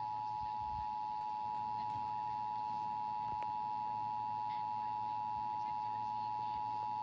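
Emergency Alert System two-tone attention signal: two close, high, steady tones sounding together at an even level without a break. It announces an emergency alert message, here a national test.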